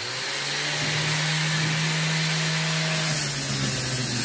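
A machine running steadily, a constant even hiss with a low hum underneath.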